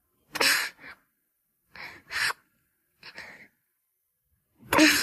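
Snoring-like breathing from a person: four short, rasping breaths about a second apart, the first and last the loudest.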